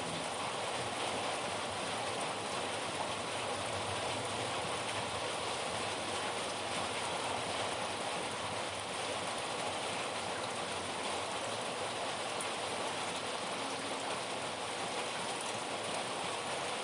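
Steady rain, an even hiss that holds without change.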